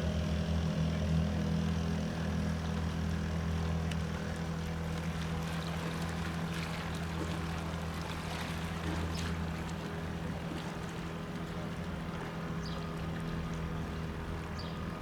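ATR 72-600 twin-turboprop airliner's engines and propellers running with a steady low drone that slowly gets quieter.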